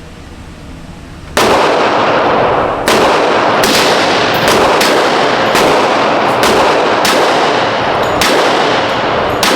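A rapid string of gunshots from a KRISS Vector, starting about a second and a half in. The shots come roughly every half second, some closer together, each sharp crack ringing into the next as the magazine is emptied.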